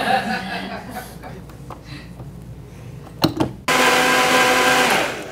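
High-powered countertop blender switched on after a couple of clicks, running loud and steady with a whine for about a second and a half, then stopping. It is grinding frozen bananas, pineapple and kale with almond milk into a green smoothie.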